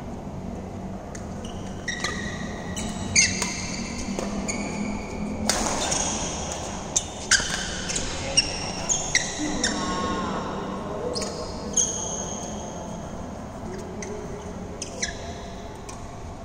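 Badminton doubles rally: a string of sharp cracks as rackets strike the shuttlecock, with shoes squeaking in short high chirps on the court mat between shots.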